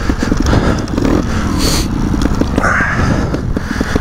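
Two-stroke dirt bike engine running at low revs with an uneven beat while the bike rolls down a steep grassy slope on the brakes, with a brief hiss about halfway through.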